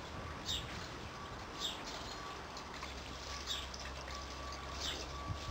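A bird calling repeatedly, a short falling chirp every second or two, over a steady low hum.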